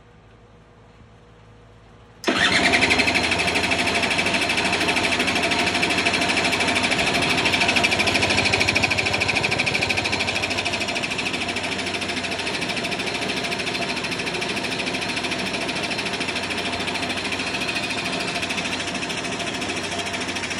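Suzuki LT80 quad's single-cylinder two-stroke engine catches about two seconds in and runs steadily, then stops near the end.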